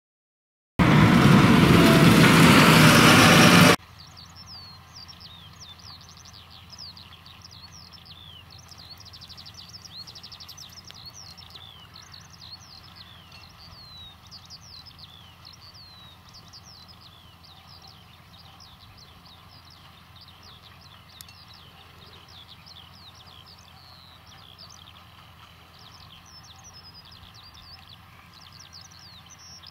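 A loud rushing noise starts about a second in and cuts off suddenly about three seconds later. After it, many birds chirp continuously over a faint steady low hum of distant tractor engines working the field.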